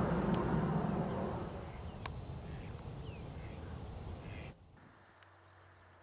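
Outdoor rumbling noise that fades over the first two seconds, with two faint clicks and a short faint bird chirp, then cuts off abruptly about four and a half seconds in to a quieter low hum.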